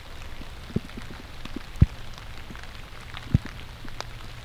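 Scattered drips tapping on leaf litter and clothing, a quiet run of irregular light ticks over a faint low hum. Two sharper dull thumps stand out, near two seconds in and again about a second and a half later.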